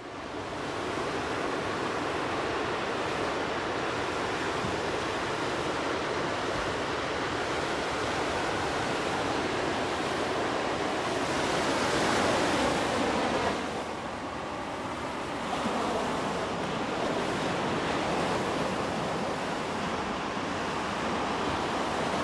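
Ocean surf breaking and washing up a sandy beach: a steady rush of waves that swells louder about twelve seconds in and eases off a couple of seconds later.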